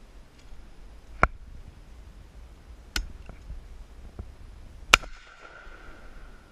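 Shotgun: three sharp cracks about two seconds apart, the last and loudest about five seconds in, followed by a steady high ringing tone.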